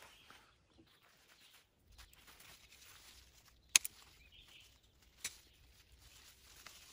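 Pruning shears snipping through lemon balm stalks: a sharp double snip just before four seconds in and a fainter single snip about a second and a half later, over a faint rustle of leaves being handled.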